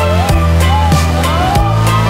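Background electronic dance music with a steady drum beat, a heavy bass line and gliding synth melody lines.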